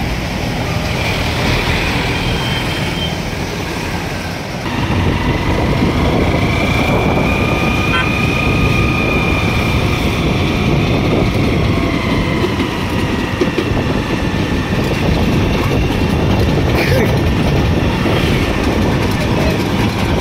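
Steady road and traffic noise from a moving vehicle running alongside the Darjeeling Himalayan Railway steam toy train. It gets louder about five seconds in, and a steady high tone sounds for a few seconds in the middle.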